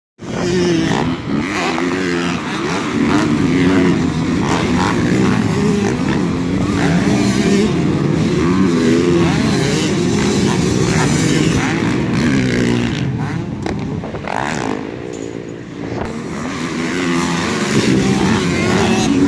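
Several motocross bikes' engines revving hard and backing off in turns as they climb and jump a tabletop, their rising and falling pitches overlapping. The sound eases for a moment about fourteen seconds in, then builds again.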